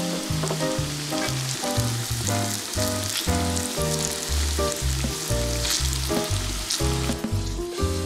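Batter-coated persimmon pieces deep-frying in a pan of hot oil: a steady sizzle of bubbling oil. It plays over background music with a regular low beat.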